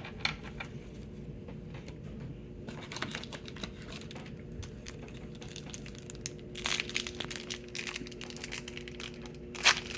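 Foil wrapper of a Pokémon booster pack crinkling and tearing as it is handled and opened, in irregular bursts of crackle with the sharpest near the end.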